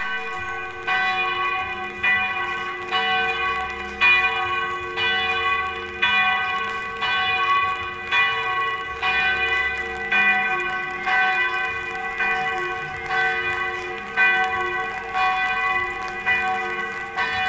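Church bells ringing from a tower, struck about once a second, with their tones ringing on between strikes.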